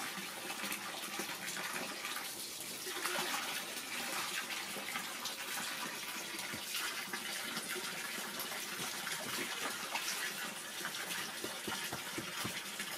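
Water splashing and churning steadily in an inflatable paddling pool as a young monkey swims through it.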